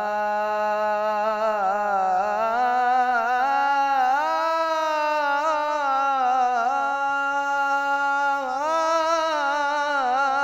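A teenage munshid's solo, unaccompanied voice sings a long, ornamented melismatic line of an Islamic ibtihal. The pitch climbs about two seconds in, dips and settles, then swells again near the end.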